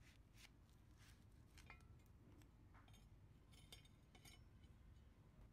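Near silence, with a few faint clicks and light metal clinks from steel frame parts being handled.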